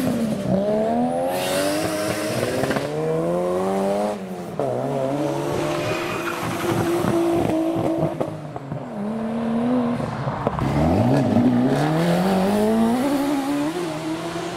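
Modified Japanese cars accelerating hard away one after another, engines revving up and dropping back at each gear change. A gold Lexus SC (Toyota Soarer) steps out on the wet road with a burst of tyre squeal about two seconds in, and a silver Nissan Skyline R33 pulls away later.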